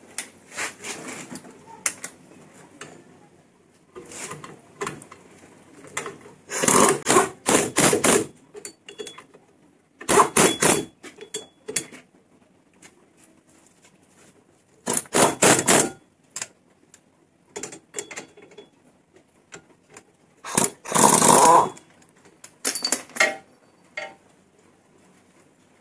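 A tool driving and tightening bolts in about five short bursts of rapid clattering, each a second or so long, with fainter metal clicks between them.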